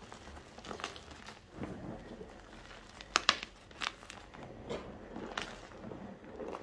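Soft gym chalk blocks being crushed and crumbled by hand in a pile of chalk powder: irregular soft crunching and crackling, with a couple of sharper cracks a little past three seconds in.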